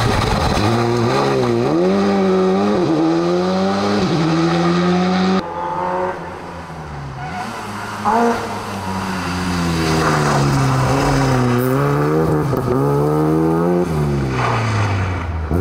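Rally car engine revving hard, its pitch climbing and dropping again and again as the car accelerates, shifts gear and lifts off. About five seconds in the sound drops abruptly and quietens, then builds back up loud a few seconds later.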